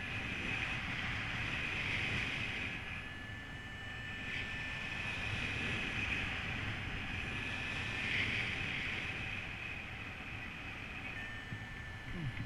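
Airflow rushing over the camera microphone during a paraglider flight, swelling and easing every few seconds, with a faint steady high whistle.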